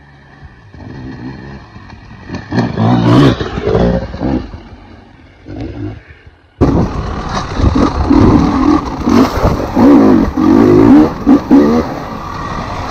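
Enduro dirt bike engine revving as the bike climbs toward and past, swelling to its loudest about three seconds in and then fading. More than halfway through it cuts suddenly to the engine heard loud from on the bike itself, revving up and down again and again.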